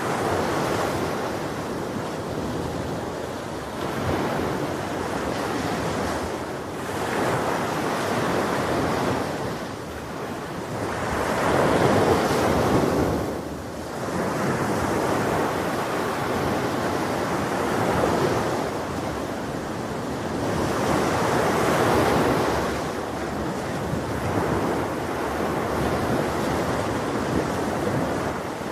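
Ocean surf breaking on a beach, the wash swelling and falling back every few seconds, with the loudest wave about twelve seconds in.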